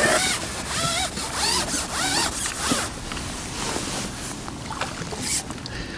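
Fixed-spool fishing reel being wound in short turns as a hooked fish is played, a zip-like whirring with wavering tones.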